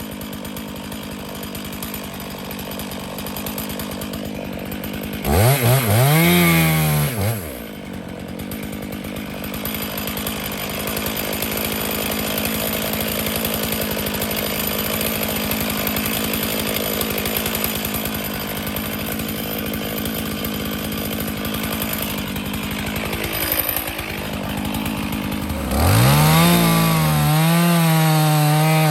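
Two-stroke Stihl chainsaw running. It is revved up hard about five seconds in and drops back after a couple of seconds, then near the end it is revved up again and held at full throttle.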